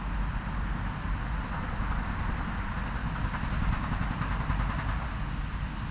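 A power tool not far off, hammering rapidly and steadily like a jackhammer.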